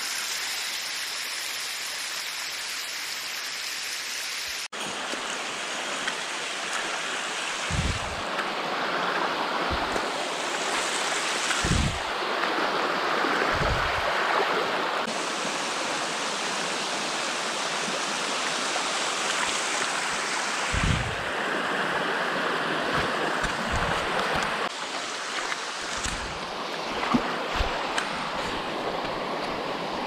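Shallow hot-spring stream rushing and cascading over rock slabs, a steady wash of water, with a few short low thumps here and there.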